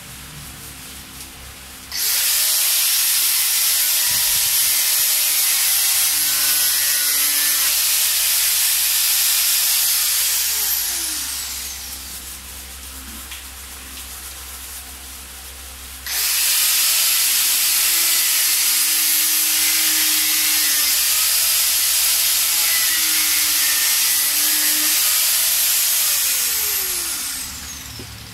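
Small handheld high-speed grinder trimming the rough edge of a fiberglass helmet shell. There are two grinding runs of about ten seconds each, a few seconds apart. Each starts abruptly with a loud hiss of cutting and ends with the motor's whine falling as it spins down.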